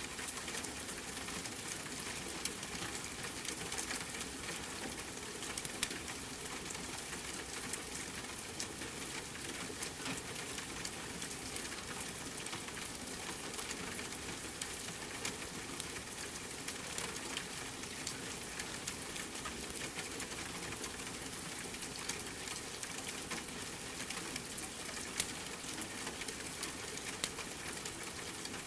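Steady rain mixed with the crackle of a wood fire: an even wash of rain with frequent small pops and snaps scattered through it.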